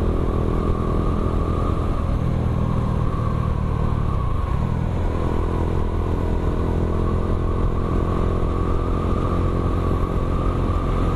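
Bajaj Dominar 400's single-cylinder engine running at low revs through an aftermarket Akrapovic M1 exhaust, with a deep, bassy note. The engine note drops briefly about four seconds in, then holds steady.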